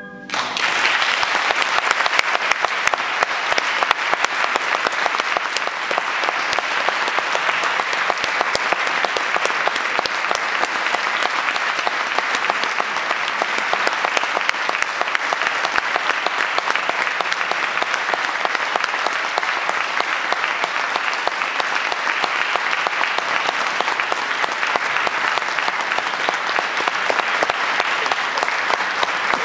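Concert audience applauding at the close of a piece, breaking out within the first half second and continuing steadily.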